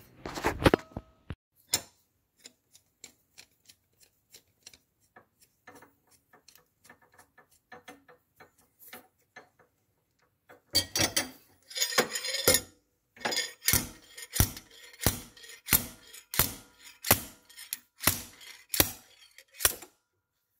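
Screwdriver picking and scraping at a stuck water pump seal in a Polaris Sportsman ATV's pump housing, metal on metal. Scattered light clicks give way, about halfway through, to a steady run of louder scraping strokes, roughly one and a half a second.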